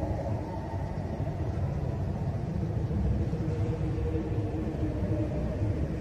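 Low, steady rumble with faint humming tones above it.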